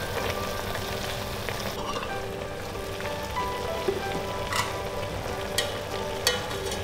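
Liquid simmering and bubbling around a whole chicken in a stainless steel pot, a steady sizzling hiss. Metal tongs click against the chicken and the pot about four times in the second half.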